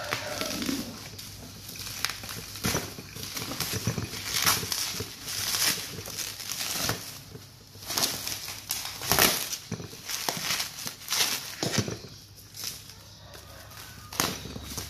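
Bubble wrap being pulled and peeled off a cardboard box by hand: irregular rustling and crinkling of plastic, with frequent sharp crackles.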